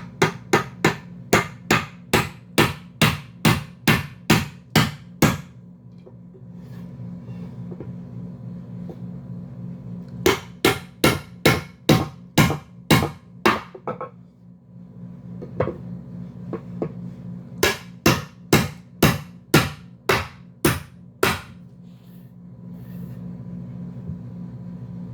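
Hammering in three runs of steady, evenly spaced blows, about three strikes a second: a long run of some fifteen strikes, then a run of about ten near the middle and another of about ten later on.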